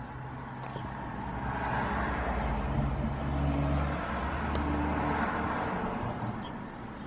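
A motor vehicle passing by: its noise swells about two seconds in, peaks, and fades near the end over a steady low hum. There is a single light click about four and a half seconds in.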